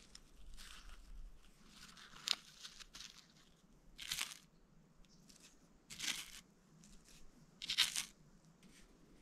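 Fingertips pinching and pressing a little heap of crushed dried marri gum sap on weathered wood: short gritty scratches and crunches, about five of them roughly two seconds apart.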